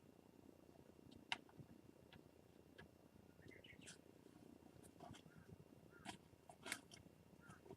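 Faint scratching and rustling from Japanese scops owls moving about in a nest box, with a few short, faint calls in the middle and near the end.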